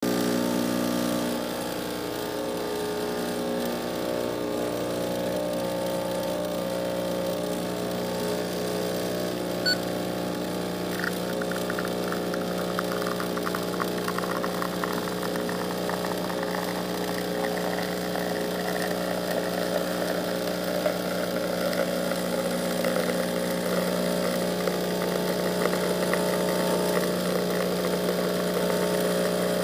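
Espresso machine pump running with a steady hum while a shot is pulled. From about eleven seconds in, espresso streams out of a bottomless portafilter into the cup with a fine crackling trickle.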